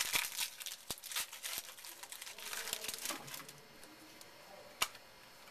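A trading-card pack wrapper torn open and crinkled by hand, dense crackling for about three and a half seconds, then one sharp click near the end.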